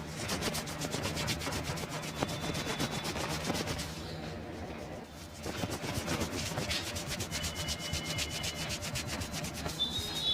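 Fast, rhythmic hand-massage strokes rubbing over skin and hair, about seven or eight a second, with a short break about halfway through.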